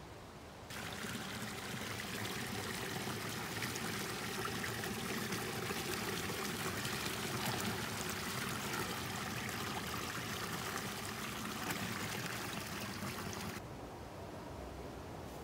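Water pouring over a small rock ledge into a stream, close up: a loud, steady splashing that starts suddenly about a second in. Near the end it drops to the quieter ripple of shallow flowing stream water.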